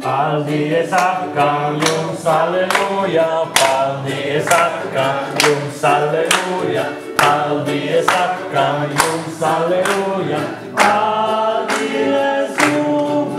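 Group of people singing a song together to a classical guitar, with hand-clapping on the beat about twice a second.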